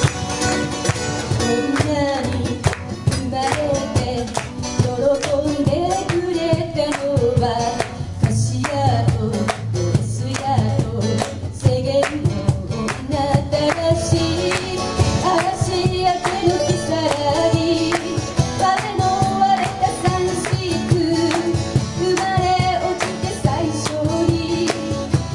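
A woman sings a song into a microphone, accompanied by acoustic guitars and a cajon beating a steady rhythm.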